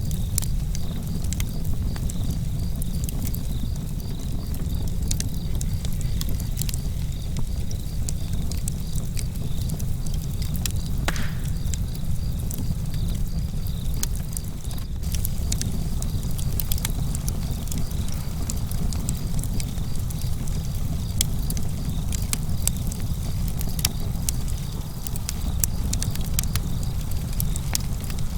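Wood fire burning in a fireplace, with frequent small crackles and pops over a steady low rumble.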